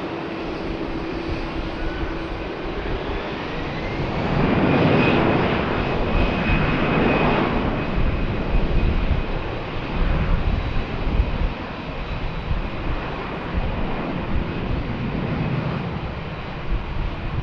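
Boeing 747-400's four jet engines at takeoff power, a steady roar that swells as the jet passes, loudest about five seconds in. A high whine rises and then holds over the roar.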